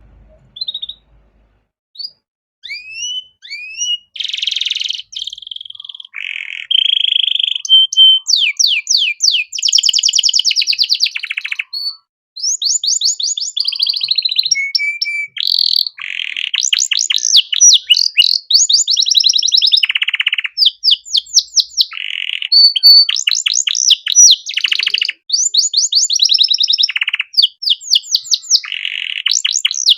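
Domestic canary singing a long, varied song of short rising chirps, fast rolling trills and held notes, with only brief pauses between phrases.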